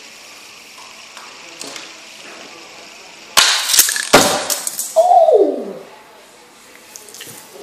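Die-cast toy cars flung off a spinning fidget spinner, hitting and clattering against hard surfaces in a sudden loud burst of knocks about halfway through, followed by a short tone that falls in pitch.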